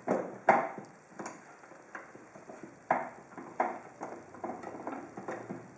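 Irregular sharp clicks and knocks of small hard objects being handled and set down, about eight in all; the loudest comes about half a second in.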